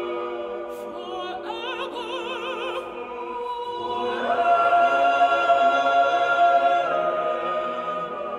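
Mixed chamber choir singing sustained chords in a reverberant church. About a second in, a single voice with wide vibrato wavers over the chord, and from about four seconds a high note swells in and is held loud for nearly three seconds before easing.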